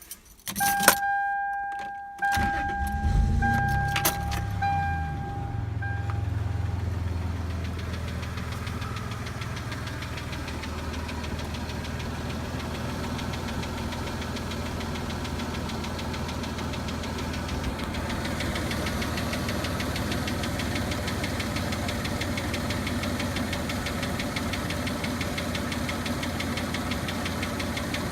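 Toyota Tacoma engine cranked and catching about two seconds in, revving briefly, then settling into a steady idle with the knock the owner is recording. A dashboard warning chime beeps through the first few seconds.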